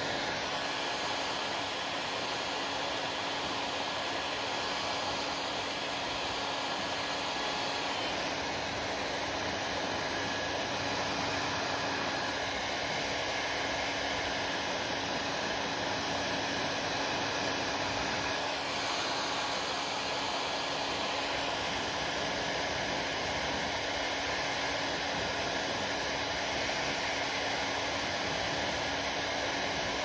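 Hand-held hair dryer running steadily, a constant rush of blown air over a faint, even motor hum.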